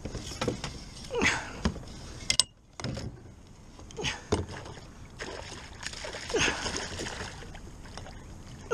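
A hooked musky splashing and thrashing at the surface beside a kayak as it is scooped into a landing net, with scattered knocks and clicks of rod, net and gear against the kayak.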